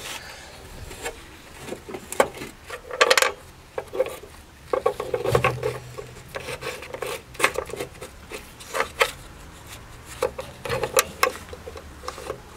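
Irregular clicks, knocks and rubbing of metal as a car's windscreen wiper spindle is handled and pushed up through its hole in the scuttle panel.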